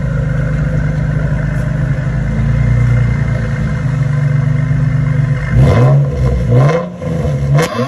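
Infiniti G35's 3.5-litre V6 through a newly installed Spec-D cat-back exhaust, idling steadily, then revved three times in quick blips from about five and a half seconds in, each rising and dropping back.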